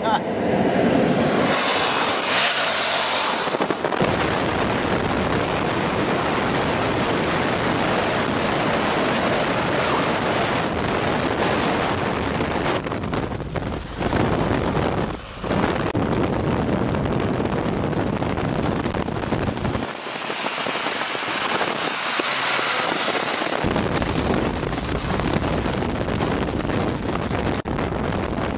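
Loud wind rush and road noise from a vehicle moving at highway speed, with wind buffeting the microphone. The level dips briefly twice about halfway through.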